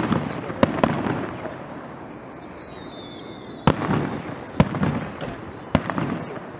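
Aerial fireworks shells bursting over a display, about five sharp bangs spread through the few seconds, over a steady rumble of the show.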